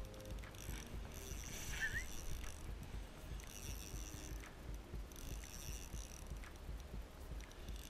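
Small spinning reel (Shimano Soare C2000) being cranked in three spurts of a second or two, a light whirring of the gears and line as a hooked fish is reeled in on a light rod. A brief rising squeak about two seconds in, over a constant low wind rumble on the microphone.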